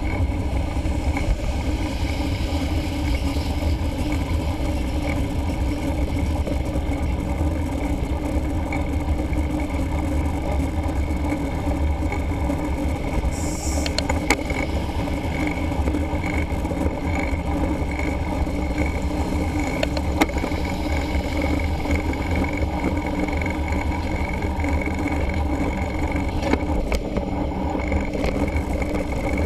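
Wind and road noise picked up by a camera mounted on a mountain bike riding along a road: a steady low rumble with a faint tyre hum, a few sharp knocks from bumps, and traffic on the road.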